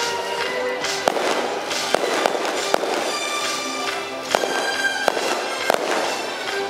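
Aerial fireworks going off in a stadium display, with about seven sharp bangs spaced irregularly, over music with long held notes.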